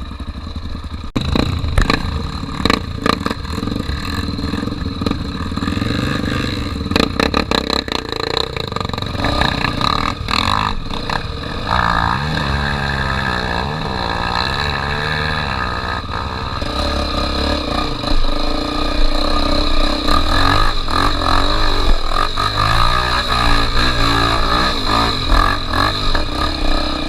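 Honda Tornado 250 trail motorcycle's single-cylinder four-stroke engine running under way, revving up and down several times, with rattling and knocking during the first ten seconds or so.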